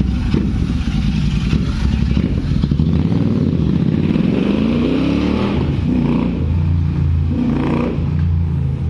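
Royal Enfield Continental GT 650 parallel-twin engine running through an aftermarket AEW 103 exhaust with its dB killer removed, with a deep, bassy note. The revs climb from about three to five seconds in, then hold steady.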